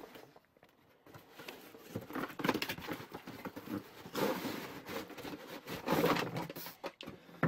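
Cardboard box being opened and its cardboard insert tray slid out, with irregular rustling and scraping of cardboard on cardboard starting about a second in.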